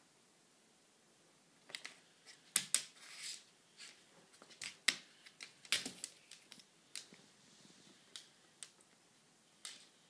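A cat's paws and claws tapping, clicking and scrabbling on a hard floor as it pounces at a string: irregular sharp taps starting about two seconds in, with a brief scuffle around three seconds.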